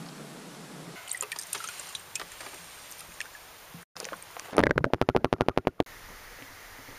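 Water dripping and trickling, then a loud, rapid run of splashing pulses lasting about a second and a half, as a caught chub is lowered by hand back into the lake.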